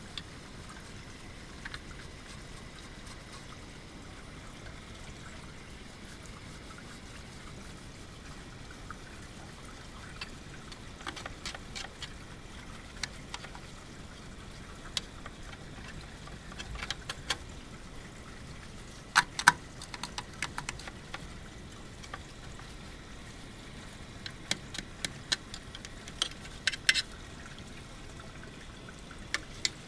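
Water trickling steadily over a wet metal transmitter chassis in a laundry tub as it is washed and rinsed, with scattered light clicks and taps. The loudest clicks come about two-thirds of the way through.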